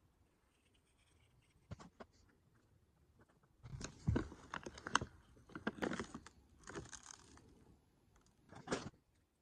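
A plastic seed bag crinkling and rustling as it is handled, in several crackly bursts over about four seconds, with one more short burst near the end.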